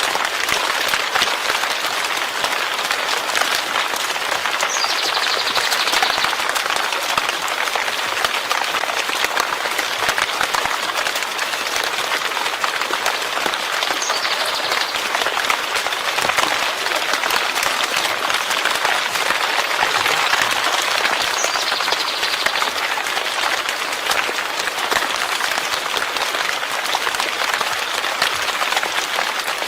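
Steady rain falling: a dense, even hiss of countless drops with no let-up.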